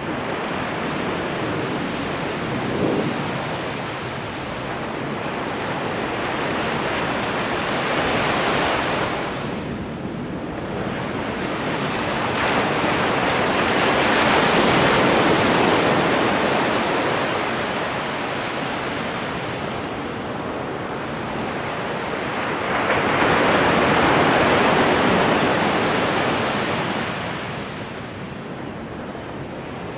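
Ocean surf breaking on a sandy beach: a steady wash of noise that swells and eases in slow surges as each set of waves comes in, loudest around the middle and again near the end.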